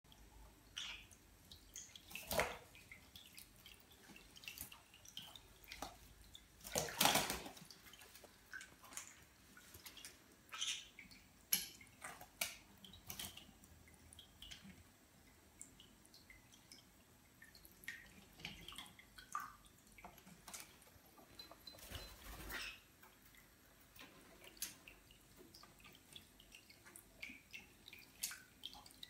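Green-cheeked conures bathing in a shallow basin of water: faint, irregular little splashes and drips as they dip and flap their wings, with a few louder splashes, the biggest about seven seconds in.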